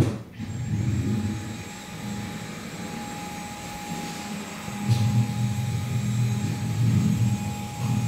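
A Dyson vacuum cleaner starts with a sudden burst and runs, with a steady high whine over a lower drone that rises and falls. The drone grows louder about five seconds in.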